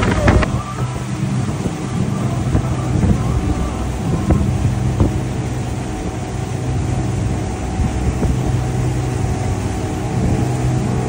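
Twin Evinrude outboard motors running at a steady cruise, a continuous drone with the rush of water and wind around the boat.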